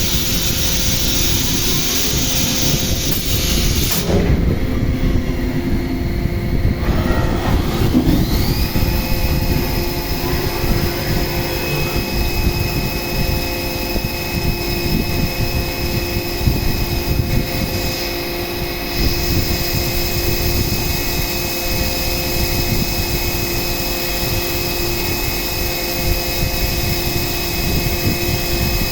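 CNC milling machine cutting an aluminium-alloy AR-15 lower receiver: a dense machining rumble and hiss under steady whining tones. About eight seconds in, the spindle whine rises in pitch and then holds steady.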